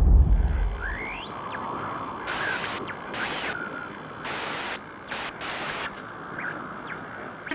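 Electronic intro sound effects: a deep boom dying away, then a hiss of noise cut by several short whooshing bursts, with a few rising electronic sweeps early on.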